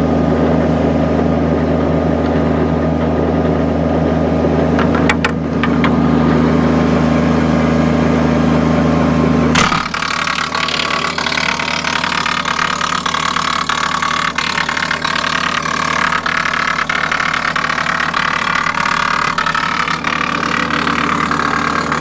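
Kubota compact tractor's diesel engine driving a Woodland Mills WC46 PTO wood chipper at running speed, a steady drone. About ten seconds in, the sound changes abruptly to a harsher crackling clatter as the chipper bites into scrap boards pushed into its hopper.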